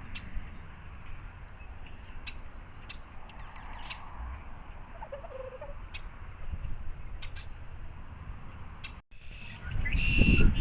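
Faint, short bird calls scattered over a low, steady outdoor rumble.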